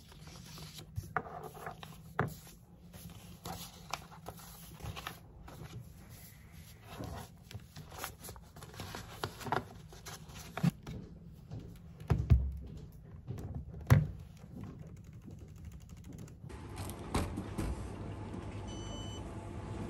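Paper being handled on a desk: sheets rustling and sliding, with small clicks and taps from a highlighter. Twice, a few seconds apart, a heavier thump as a stack of paper is knocked upright on the tabletop. Near the end the sound changes to a shop's steady background hum with a faint electronic beep.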